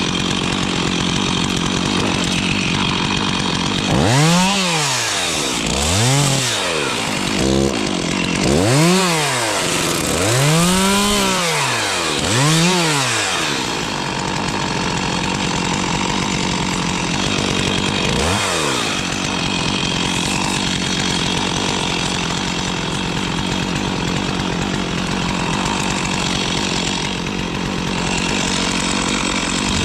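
Stihl two-stroke chainsaw revved up and down about six times between about 4 and 13 s and once more near 18 s, otherwise running steadily at high speed while cutting spruce wood.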